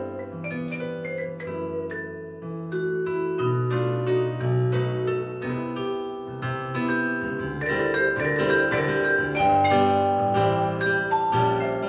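Vibraphone and piano playing a jazz duo: the vibraphone's mallet-struck notes ring over the piano's chords and low bass notes.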